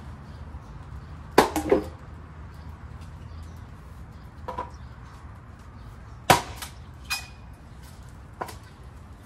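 Knocks and clanks of wood and metal being handled while tending an outdoor cooking fire under a large stockpot: a quick run of three knocks about a second and a half in, a single loud knock a little after six seconds, then a short metallic clank that rings briefly, with a few fainter knocks between. A steady low rumble runs underneath.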